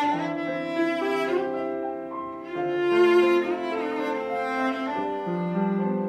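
Cello bowing long held notes that change every second or so, with piano accompaniment, in an improvised cello and piano duet.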